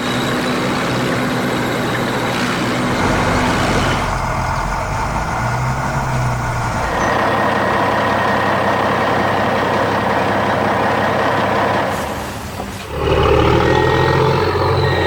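Heavy truck and construction-machine engine sounds running steadily, changing character a few times, with a short dip about twelve seconds in.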